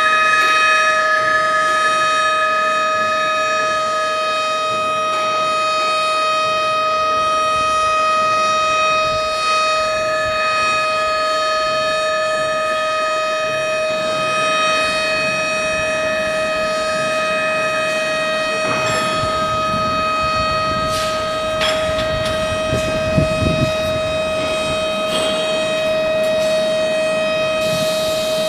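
Experimental noise music built from cicada recordings layered with industrial noise: a steady, siren-like drone held on one pitch with many overtones. In the second half, crackles and a low rumble pass through it.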